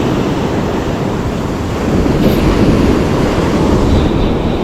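Ocean surf washing, with wind buffeting the microphone in a steady low rumble.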